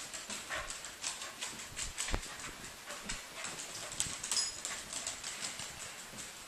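A small dog's claws clicking and skittering on a hardwood floor as it runs: a rapid, irregular run of light ticks.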